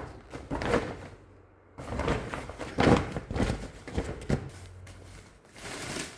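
Irregular rustling and knocking of grow bags and their packaging being handled and unpacked.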